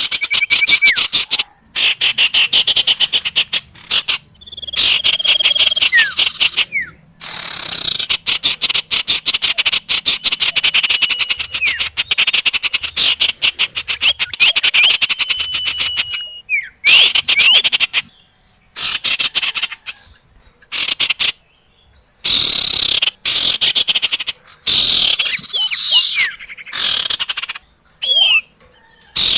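Bird-lure recording of cipoh (common iora) and other small songbirds: rapid rattling chatter with long whistled notes and quick falling chirps. It is cut into segments by several sudden short silences.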